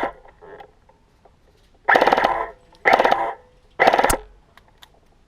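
EF Avalon MK18 electric airsoft rifle firing three short full-auto bursts about a second apart, with a sharp crack at the end of the last burst.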